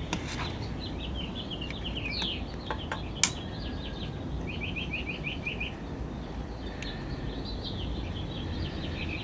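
Small songbirds chirping in quick repeated runs of short notes, over a low steady hum. A single sharp click comes about three seconds in.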